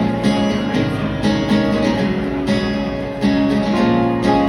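Acoustic guitar strumming chords in a song's instrumental intro, live, before the vocals come in.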